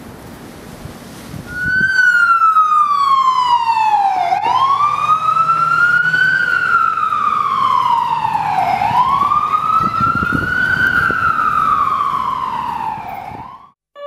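FDNY ambulance siren in wail mode: a slow, loud sweep that falls and rises in pitch, repeating about every four and a half seconds, for roughly two and a half cycles. It starts about a second and a half in and cuts off abruptly just before the end. Before it there is wind noise on the microphone.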